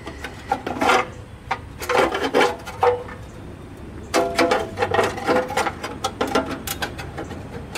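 Thin sheet-metal engine cooling tin on a Volkswagen Type 3 air-cooled engine rattling, scraping and clanking again and again as it is forced against the engine and won't seat.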